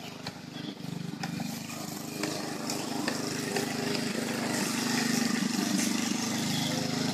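Petrol lawn mower engine running steadily, growing gradually louder, with a few light clicks over it.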